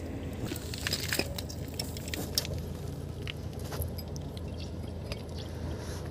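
Scattered light metallic clicks and taps from a drum brake shoe hold-down spring and its retainer cup being handled and pressed into place against the backing plate.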